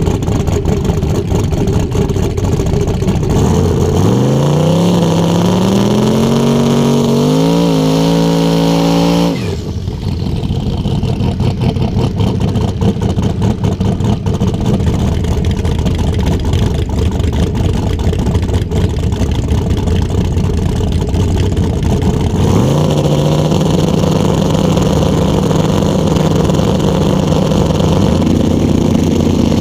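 Turbocharged drag car engine heard close up. It idles, then revs up in steps for about five seconds and drops suddenly back to a choppy, lumpy idle. About two-thirds of the way through it rises to a steady, held higher rpm, with another rise near the end.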